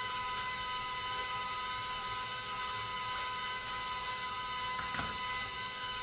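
A steady whining hum of several high tones runs throughout, under faint snips of scissors cutting paper; a sharp click about five seconds in as the scissors are set down on the counter.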